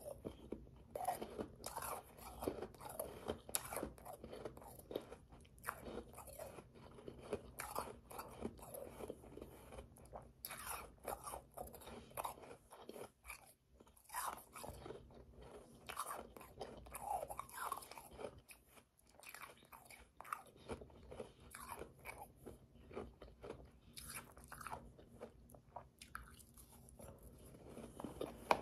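Chewing and crunching mouthfuls of powdery, slushy ice eaten by the spoonful: a dense, irregular run of small crunches, with a couple of brief lulls.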